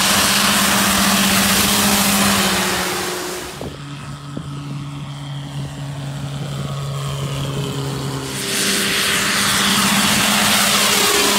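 Single-engine propeller bush plane running at high power close by. The sound drops back and lowers in pitch for a few seconds in the middle, then swells loud again near the end as the plane passes low.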